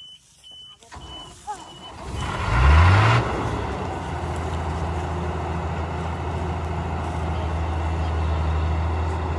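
A few short high-pitched warning beeps, then a heavy diesel engine of a tractor or combine harvester revs up sharply about two and a half seconds in and settles into a steady, loud, even run, as if working under load in a pull.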